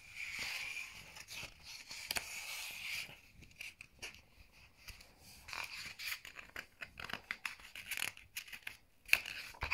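Paper pages of a picture-book annual being turned by hand: a rustle and scrape of paper for the first few seconds, then scattered soft crackles and taps as the pages are handled and settle.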